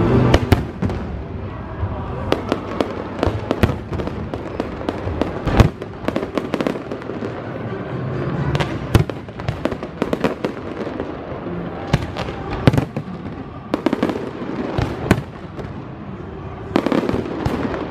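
Fireworks display: an irregular string of sharp bangs and crackles, the loudest about five and a half seconds in and a dense flurry near the end.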